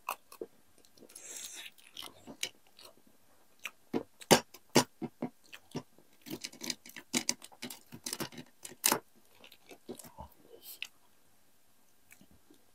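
Close-up eating noises: chewing with irregular sharp clicks and taps. They die away about eleven seconds in.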